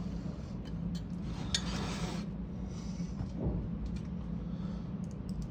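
Light metal clinks and a brief scrape as button-head screws and washers are fitted to fasten a floor socket's cover plate, over a steady low hum.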